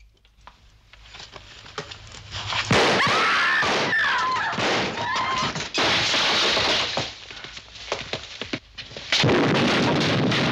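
Action-film sound effects of crashing and blasts. A building rumble breaks into a loud crash about three seconds in that lasts several seconds, with a few short pitched wails over it. A second loud crash comes in about nine seconds in.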